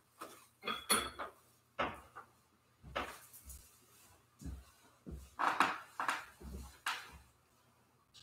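Altar vessels being handled: about a dozen irregular small clinks and knocks of metal and glass set down and moved on the altar. A few of the clinks ring briefly.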